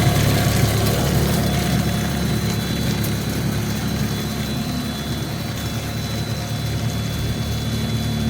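The 20 HP electric motor of a 55 mm plastic-recycling extruder runs steadily, a low machine hum with a thin high whine, as the machine works HDPE.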